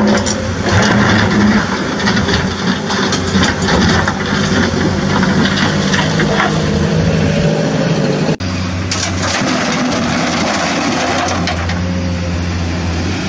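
A truck engine running steadily, with limestone rocks clattering and knocking into a plastic toy dump truck's bed as it is loaded. The sound breaks off briefly about eight seconds in.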